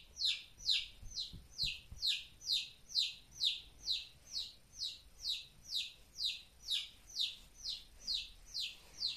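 A chick peeping loudly and without pause: a steady run of high, downward-falling peeps, about two a second.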